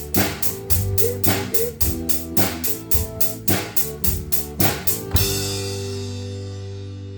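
Drum kit played along with a guitar-pop song recording in a steady beat, ending on a final hit about five seconds in; the last chord and cymbal then ring out and fade.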